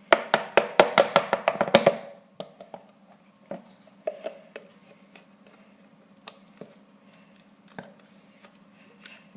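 A rapid run of sharp knocks, about seven a second for two seconds, from a nearly empty glue bottle being knocked to get the last of the glue out; then scattered light clicks and taps.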